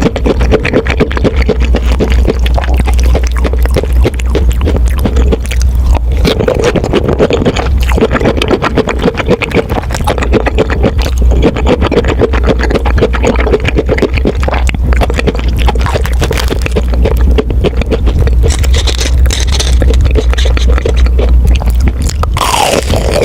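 Close-miked chewing of crispy breaded fried pork cutlet: dense, continuous crunching and crackling of the fried crust.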